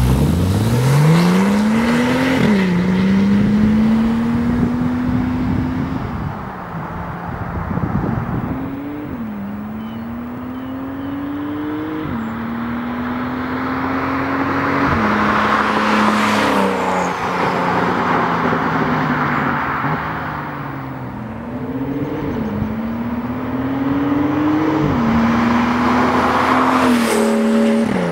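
A Porsche 911 997.2 Turbo S's twin-turbo flat-six pulls away hard on its stock exhaust. The engine note climbs and drops sharply with each quick upshift. Later it accelerates again toward and past close by, with a loud surge near the end.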